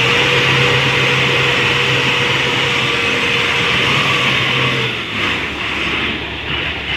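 Heavy diesel truck engine running hard under load as the stuck flatbed is pushed and driven out of the mud. Its steady engine tone holds, then drops away about five seconds in, leaving a rougher running sound.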